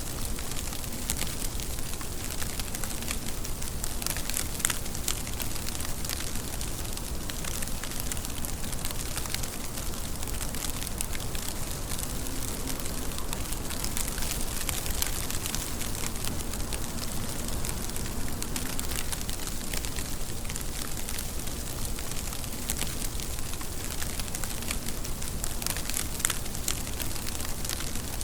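Steady rain falling: a constant hiss with many sharp drop ticks scattered through it.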